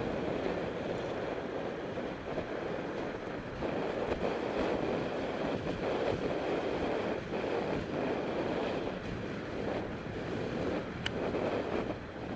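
Wind buffeting a ContourHD helmet camera's microphone on a moving bicycle, over the rumble of traffic, with a single sharp click near the end.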